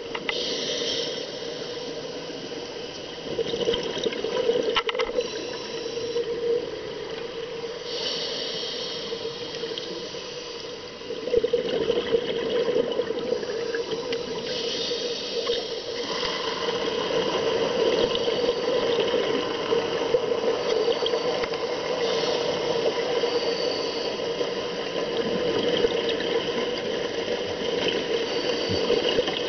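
Scuba breathing heard underwater: the regulator's exhaled bubbles gurgle in surges every few seconds over a steady low hum.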